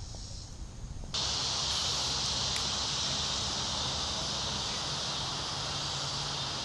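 Steady outdoor noise of an insect chorus over the creek's running water, starting suddenly about a second in and holding level.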